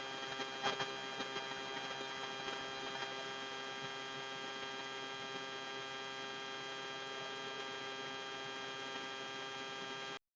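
Steady electrical buzz, a mains-type hum rich in overtones that holds at one pitch and level, with a few faint clicks in the first second; it cuts off suddenly near the end.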